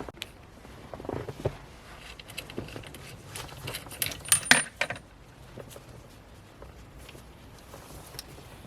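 Light clicks and clatters of plastic interior trim parts and connectors being handled during centre-console disassembly. The loudest cluster comes around four seconds in, with a brief high squeak, and the handling is quieter after that.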